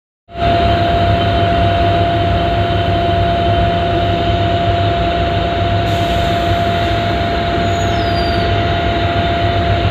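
HGMU-30 diesel-electric locomotive idling, heard inside its cab: a steady low hum with a constant high whine over it.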